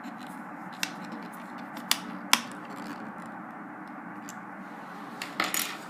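A fingernail file used as a screwdriver, turning a screw into a netbook's plastic back cover: a few sharp little clicks and scrapes, scattered, with a short cluster near the end, over a steady low hiss.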